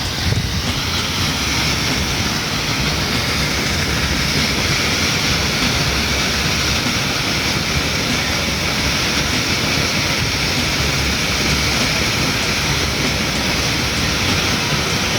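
Firework fountain spraying sparks with a steady, unbroken rushing hiss and a low rumble underneath, without bangs or crackles.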